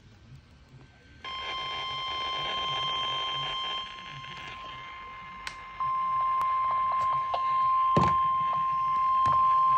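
Emergency Alert System attention tone: a steady, single high-pitched alarm tone that comes in about a second in and gets louder about six seconds in. It is the alert signal that comes before a severe thunderstorm warning message. A few faint clicks and one sharper thump near eight seconds sit on top of it.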